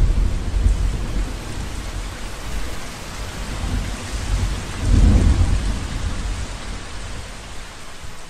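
Steady rain falling, with low rolls of thunder: one at the start and a louder one about five seconds in.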